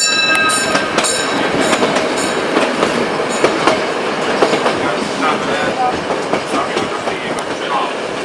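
Metre-gauge train running along the track, a steady rumble with irregular clicks and knocks from the wheels over the rails. A brief high ringing tone fades out in the first second.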